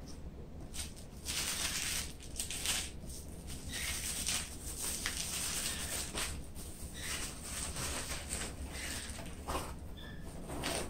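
Plastic bubble wrap crinkling and rustling in irregular crackles as it is handled and gathered up. Near the end, a small cardboard box is opened.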